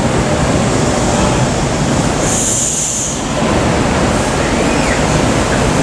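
Rail vehicle running on the track: a steady, loud rush of wheel and track noise, with a brief high-pitched wheel squeal about two seconds in.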